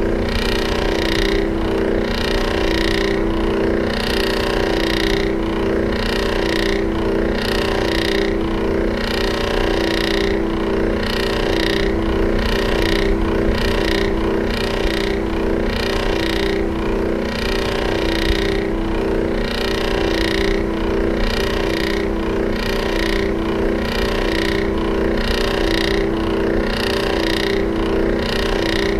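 Electric fan running: a steady motor hum under a rushing of air that pulses regularly, a little more than once a second.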